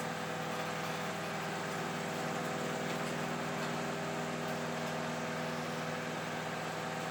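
Microwave oven running: a steady hum with a faint whirr over it, with no change in level.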